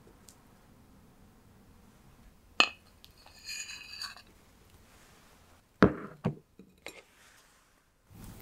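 A metal cake server clinks once against a ceramic plate, which rings briefly. A few seconds later come a dull knock and two lighter taps of dishware on the table.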